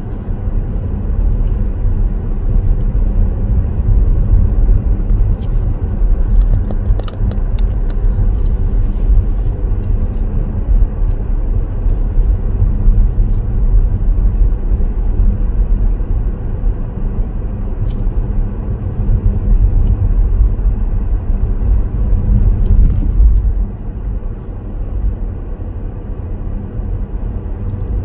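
Car on the move: a steady low rumble of engine and road noise, with a few faint ticks about seven to nine seconds in and a slight drop in level near the end.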